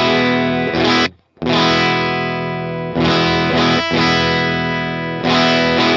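Electric guitar played through a Line 6 POD Go amp modeller, with a low/high shelf EQ trimming a little low end and lifting a little high end. Sustained chords ring out, cut short once about a second in by a brief silence, then are struck three more times, each left to ring for one and a half to two seconds.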